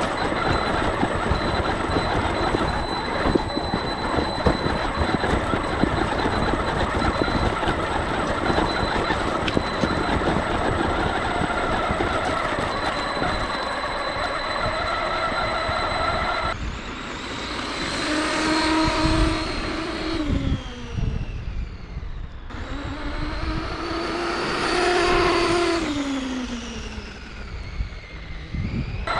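Brushless electric motor and drivetrain of a Traxxas Maxx WideMaxx RC monster truck running, first at a steady speed with a constant whine. After a sudden cut it revs up and back down twice, the whine rising and then falling in pitch each time.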